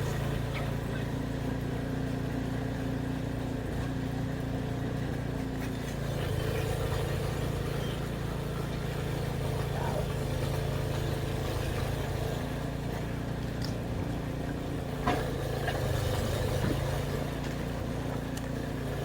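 A motor-vehicle engine idling steadily, with one short click about fifteen seconds in.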